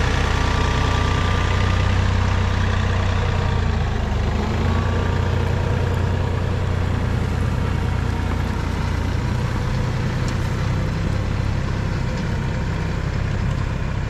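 Compact tractor engine running steadily while it pulls a middle buster plow through a potato row, lifting the soil.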